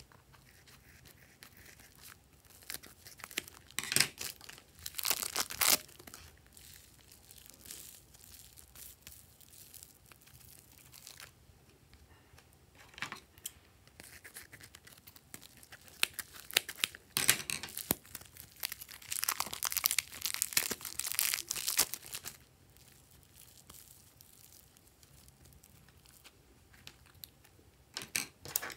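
Thin plastic packets crinkling as they are cut open with scissors and squeezed, pushing soft foam clay out in short crackly, tearing bursts. The busiest stretch of bursts comes a little past the middle, with quieter handling between.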